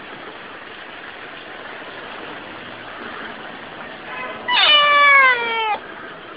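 A cat gives one loud meow, about a second long, falling in pitch, a little over four seconds in, over a steady background hiss.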